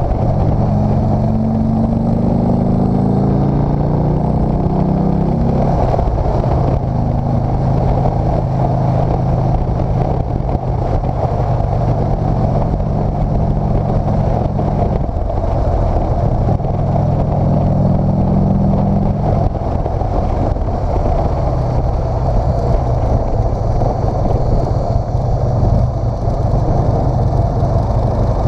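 Motorcycle engine running under way, heard from on the bike over a steady rush of wind. Its note climbs over the first few seconds as it accelerates, then holds fairly steady, with a shift in pitch about halfway through and another near twenty seconds in.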